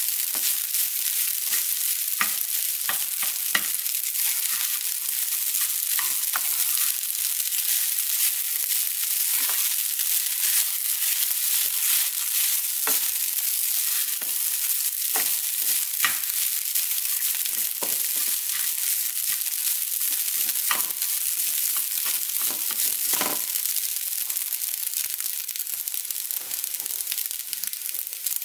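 Garlic fried rice sizzling in oil in a nonstick frying pan, with the spatula scraping and tapping against the pan at irregular moments as the rice is stirred and turned.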